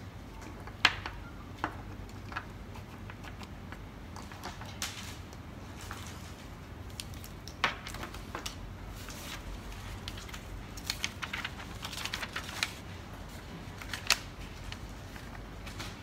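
Small plastic connectors being handled: scattered sharp clicks and taps, the loudest about a second in and a quicker run of clicks about eleven to thirteen seconds in, over a faint low hum.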